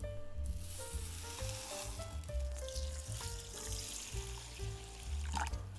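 Water poured in a stream from a jug onto uncooked rice in a bowl, a steady hiss that stops shortly before the end, with background music playing over it.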